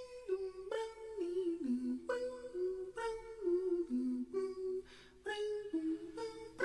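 Background music: a slow solo melody of held notes, stepping up and down in pitch with a clear attack on each new note.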